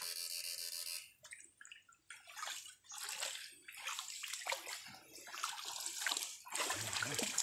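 Feet splashing and sloshing while wading fast through a shallow creek, an uneven run of splashes that grows louder near the end. In the first second, a steady electric buzz from the electrofishing shocker with its probes in the water.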